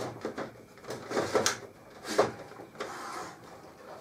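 Handling noise as an optical drive and its wiring are worked into a PC case's drive bay: plastic and metal clatter with several short knocks, the sharpest about a second and a half and two seconds in, and a brief scrape about three seconds in.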